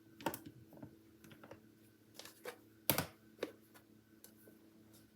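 Light clicks and taps of craft supplies being handled on a tabletop, with one sharper click about three seconds in.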